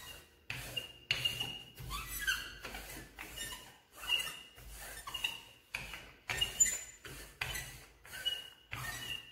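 Wooden rolling pin rolling out dough on a floured countertop: quick repeated back-and-forth strokes, with short high squeaks on many of them.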